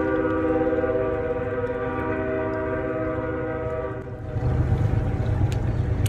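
A steady chord of several held tones sounds for about four seconds and then stops, followed by a low rumble.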